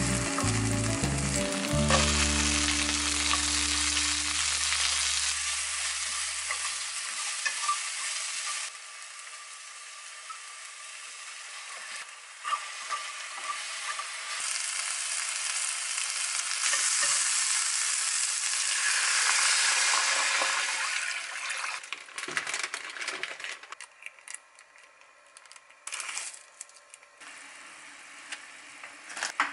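Garlic, green onion and then sliced vegetables sizzling in hot oil in a frying pan while being stirred with wooden chopsticks. About two-thirds of the way through the sizzle falls away, leaving a quieter, patchy stretch with a few small clicks.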